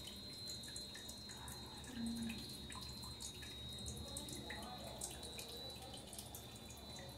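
Faint trickle and irregular drips of water from a small tabletop decorative fountain.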